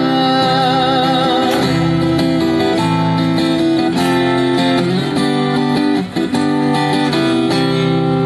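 Acoustic guitar strummed in a steady rhythm, an instrumental passage with little or no singing, with a brief drop in the playing about six seconds in.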